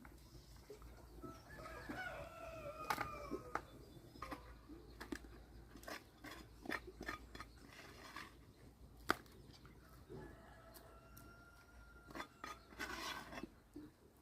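Rooster crowing, once about two seconds in and again near the end, with scattered sharp clicks and knocks.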